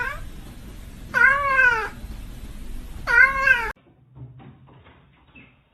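A domestic cat meowing three times, each meow a drawn-out call that rises and then falls in pitch; the third is cut off abruptly.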